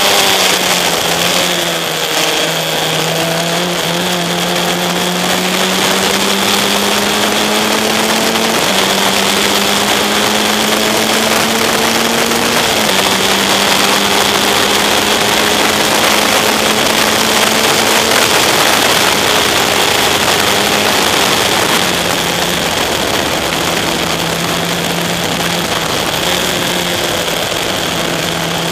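Single-seater race car engine heard onboard, pulling hard through the gears: the pitch climbs steadily and drops sharply at each gear change, several times. Heavy wind rush from the open cockpit runs under it.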